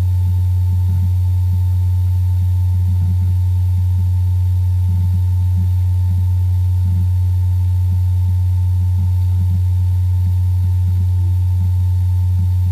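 A loud, steady low hum with a fainter steady higher tone above it, unchanging throughout.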